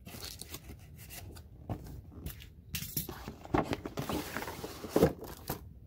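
A cardboard action-figure box being opened and handled: irregular scrapes, rubs and light clicks of cardboard and packaging, with a couple of louder clicks in the second half.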